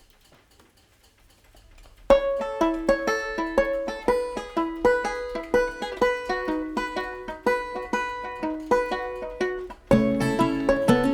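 Background music: a quick, picked banjo melody that starts about two seconds in, with a lower accompaniment joining near the end.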